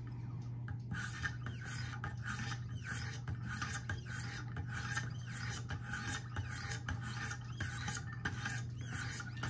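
Abrasive stones of a Wicked Edge guided knife sharpener stroked along both sides of a clamped knife blade while sharpening the edge: a steady run of rasping strokes, about two a second, over a steady low hum.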